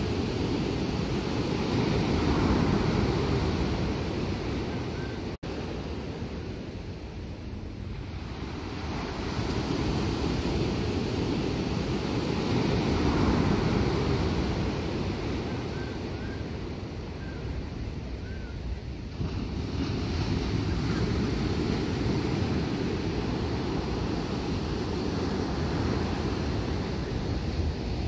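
Ocean surf breaking and washing up the beach, swelling and fading about every ten seconds, with wind rumbling on the microphone.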